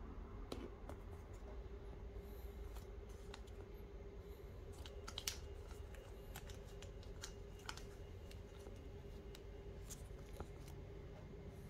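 Small scattered clicks and taps of hands handling a pair of metal-framed aviator sunglasses, one sharper click about five seconds in, over a faint steady hum.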